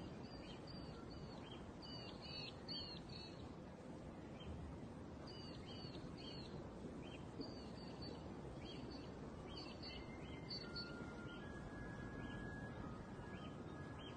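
Birds calling: runs of short, sharp, down-slurred notes, several a second, in repeated bouts over a faint outdoor hiss.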